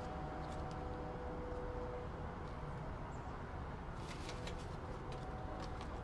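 Paper banknotes crinkling and snapping as gloved hands pick up and handle loose bills. A few crisp crackles come just after the start and a denser cluster comes from about four seconds in, over a steady low background rumble.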